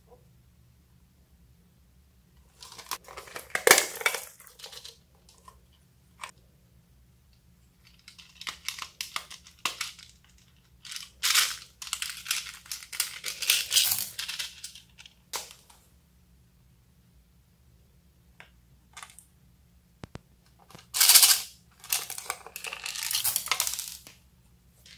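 Slime being worked by hand, giving sticky crackling and popping clicks in three spells with short pauses between them.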